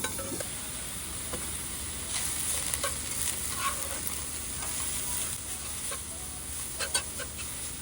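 Food sizzling in a frying pan while being stirred, with scattered light clicks of a utensil against the pan.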